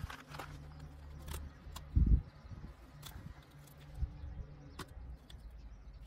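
Meat being pulled and torn by hand off a hanging masked palm civet carcass, the ribs coming away with it: scattered small cracks and clicks, with a dull thump about two seconds in, over a faint low hum.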